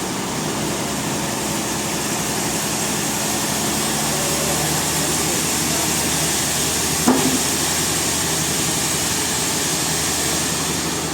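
Band sawmill running steadily with a machine hum and a hiss, growing slightly louder partway through, with one sharp knock about seven seconds in.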